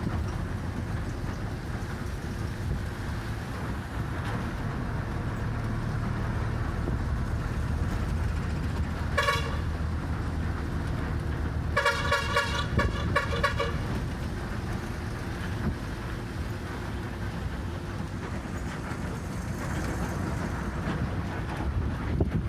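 Steady low engine and road rumble of a route bus heard from inside the cabin. A vehicle horn gives one short toot about nine seconds in, then a longer stuttering blast a few seconds later.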